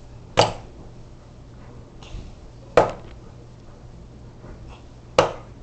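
Ceiling fan's mount knocking sharply three times, about two and a half seconds apart, as it is pushed up into place and fails to seat: the taped down rod still lets the mount sag.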